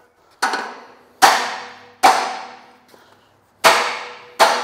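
Hammer blows on a steel Land Cruiser BJ40 chassis rail, straightening a bend in the frame: five strikes, each ringing briefly, the last two after a short pause.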